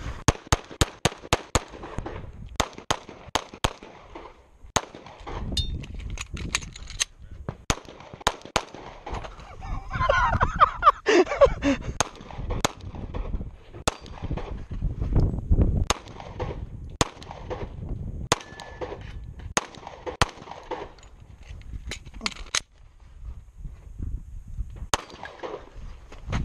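Semi-automatic pistol firing strings of rapid shots, several a second, with short gaps as the shooter moves between shooting positions during a USPSA stage run. A brief falling pitched sound comes a little past ten seconds in.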